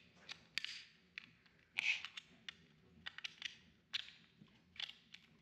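Small metal pry tool clicking and scraping against a steel shield can on a circuit board as it is pried up: scattered faint, sharp clicks, the loudest about two seconds in.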